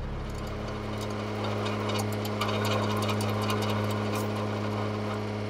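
Flatbed trailer landing gear being cranked up by hand, the crank and gear legs giving off a rapid run of clicks, over the steady low hum of an idling semi-truck engine.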